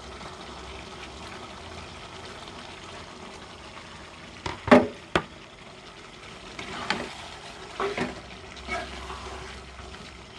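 Thick chicken-and-potato rendang sauce sizzling as it reduces in a pan. A metal spoon strikes the pan twice, sharply, about halfway through, then scrapes as it stirs the sauce.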